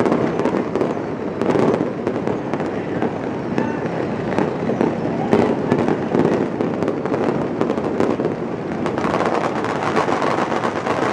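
A dense, unbroken barrage of fireworks and firecrackers going off, a steady crackle with many overlapping bangs.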